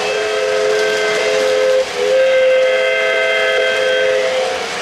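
O-gauge model train's steam whistle sound effect blowing two long blasts of a steady chord, the second longer, cutting off shortly before the end.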